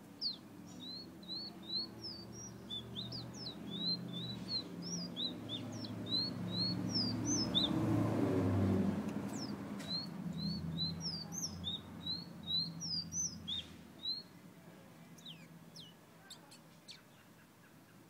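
Caged songbird whistling in quick runs of short, sharp sweeping notes, with a pause of about two seconds in the middle and only scattered notes near the end. A low rumble swells under the song and is loudest during the pause.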